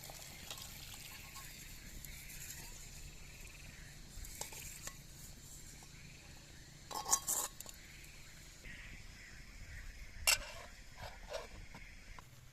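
Quiet clinks and knocks of metal cooking utensils against cookware, scattered through, with two sharper clinks about seven and ten seconds in.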